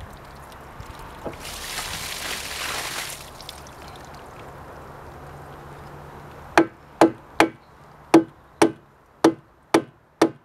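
A hatchet hammering a wooden plug into the broken outlet tap of a plastic water tank to stop it leaking. It gives eight sharp knocks, about two a second, starting about six and a half seconds in.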